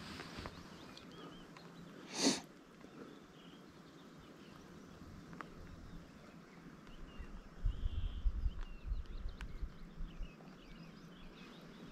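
Quiet outdoor ambience with faint, high bird chirps, a short loud rush of noise about two seconds in, and low wind rumble on the microphone in the second half.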